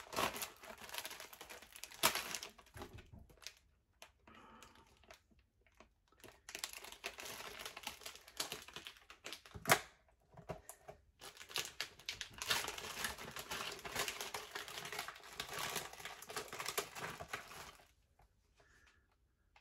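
Plastic pepperoni package crinkling and crackling as it is handled and the slices are pulled out, with a sharp snap about two seconds in and a louder one midway.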